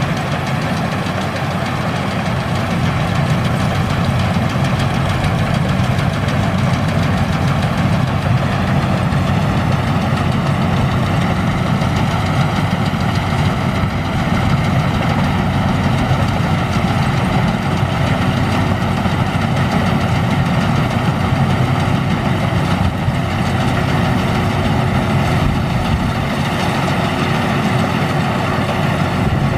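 Rice combine harvester's engine and machinery running steadily while harvesting, a constant even drone with no change in speed.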